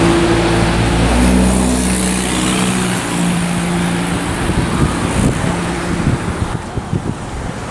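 A car's engine running with road noise, its pitch stepping up and down over the first few seconds, then fading into an uneven low rumble of wind buffeting the microphone.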